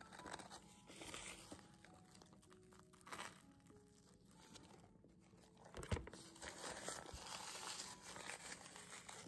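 Close-up eating sounds: crunching of a toasted sandwich and crinkling of a paper napkin, with a soft knock about six seconds in, followed by a longer stretch of napkin rustling.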